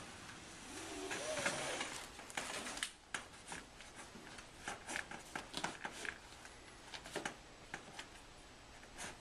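Folding-kayak washboard being slid along the rope channel at the edge of the hull skin: a rubbing scrape for the first few seconds, then a scatter of light clicks and taps as the parts are handled.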